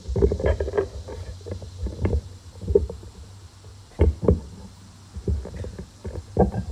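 Microphone handling noise as the mic is adjusted on its stand: irregular thumps, knocks and low rumbles, loudest at the start and about four seconds in.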